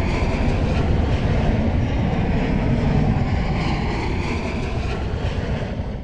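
Steady, loud rumbling roar of a passing vehicle, with no clear rhythm, easing off slightly near the end.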